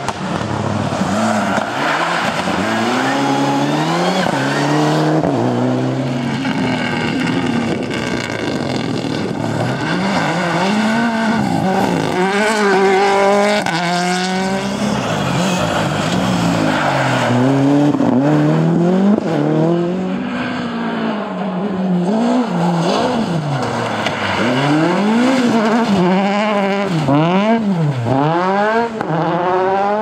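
Rally cars passing one after another at full speed. Their engines rise and fall in pitch again and again as they rev up through the gears and drop back on each shift.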